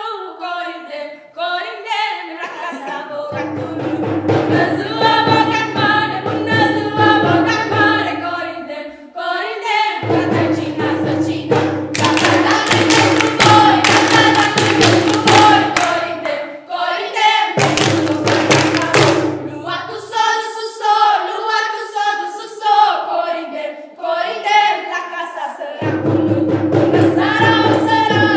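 Children's choir singing a Romanian Christmas carol (colindă). Rhythmic hand-clapping joins in about twelve seconds in for a few seconds, and again briefly just before the twenty-second mark.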